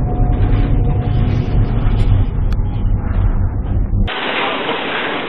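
Steady, loud low rumble of storm wind and heavy seas heard aboard a container ship as it ploughs through big waves. About four seconds in, the rumble cuts off abruptly to a thinner, even hiss.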